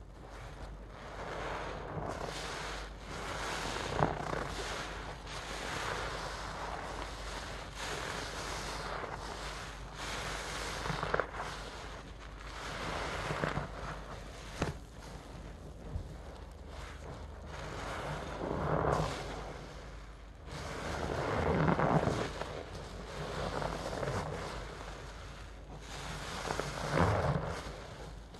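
Soaked sponges squeezed and worked by gloved hands in a basin of thick suds: wet squishing and foam crackle in repeated swells, with a few short sharp pops.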